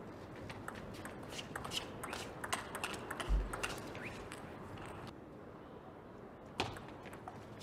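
Table tennis rally: a celluloid-type ball is struck back and forth, with quick irregular clicks of ball on rubber paddles and table echoing in a large hall. A heavy low thud comes about three seconds in, and the clicks stop about five seconds in, with one more sharp click near the end.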